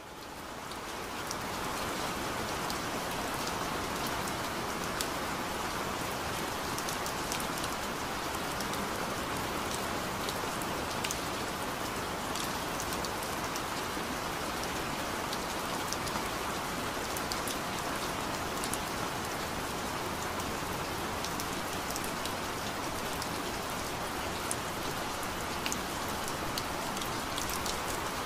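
Steady rain, an even hiss with scattered drop ticks, fading in over the first two seconds. It is the cover sound of a subliminal audio track.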